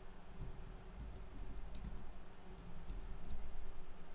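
Typing on a computer keyboard: a run of light keystrokes, coming thicker in the second half.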